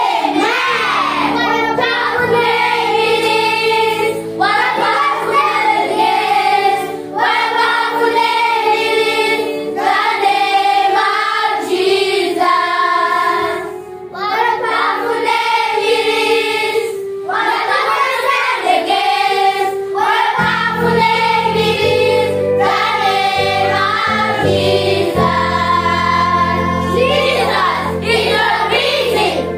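Group of young children singing a song together, a girl's voice leading at the front. Beneath it runs an instrumental accompaniment of sustained low notes, clearest in the first two seconds and from about twenty seconds in.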